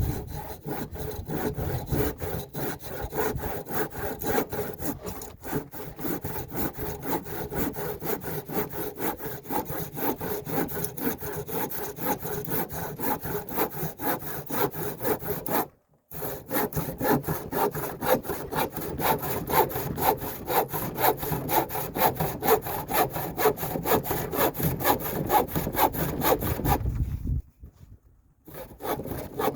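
Old handsaw cutting through an old wooden board in steady back-and-forth rasping strokes, with one brief pause about halfway through, stopping a couple of seconds before the end.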